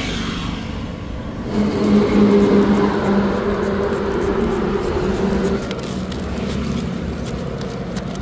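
A vehicle engine hum over a low rumble, swelling about a second and a half in and easing off after about five seconds. Short hisses and rubs from a spray bottle and a cloth on the truck's cab window come through in the later part.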